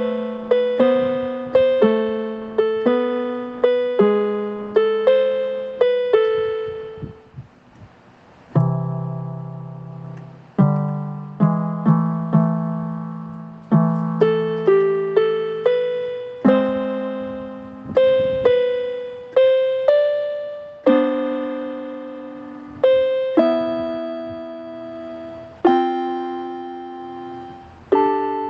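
Solo piano music: a slow melody over chords, each note struck and left to fade, with a brief lull about eight seconds in before a lower passage.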